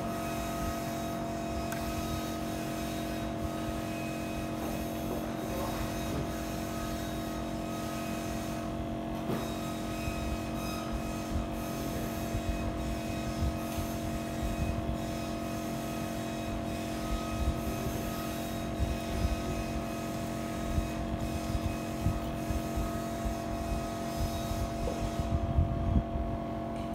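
Steady machine hum holding several even tones, over a low uneven rumble with scattered small knocks that grow more frequent near the end.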